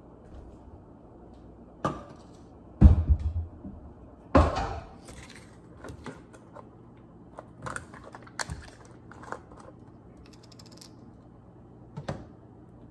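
Kitchen handling sounds: knocks as a pan and a cardboard carton are set down on a stovetop and a granite counter, loudest about three seconds in. Lighter clicks follow as the carton's plastic screw cap is opened.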